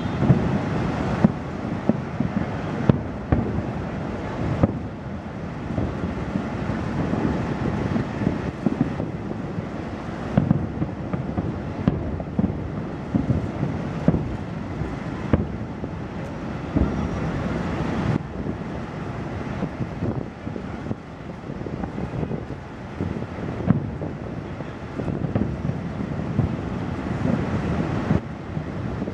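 Distant aerial fireworks shells bursting in quick succession: a continuous low rumble of overlapping booms, with sharper bangs standing out every second or so.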